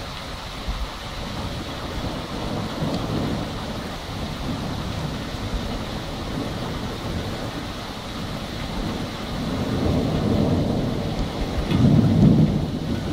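Steady rain with thunder rumbling, the rumbles swelling into louder rolls in the second half and loudest near the end.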